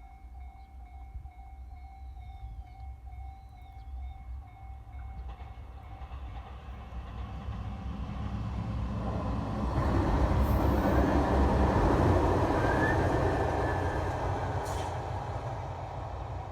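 A level-crossing warning bell rings a steady tone that fades out about five seconds in, while the rumble of an approaching train grows. The train passes close by, loudest from about ten to thirteen seconds in with a couple of sharp clicks, then fades away.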